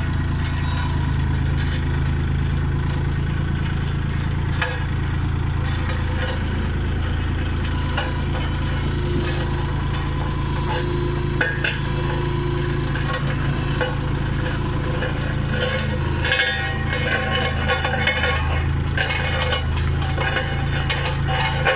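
Road roller engine running steadily at a low, even hum, with scattered clicks and clinks over it in the last few seconds.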